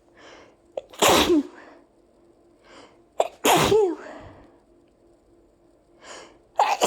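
A person in a fit of allergy sneezes: two full sneezes about two and a half seconds apart, each led by a sharp catch of breath, with quiet breaths in between and a third sneeze starting near the end.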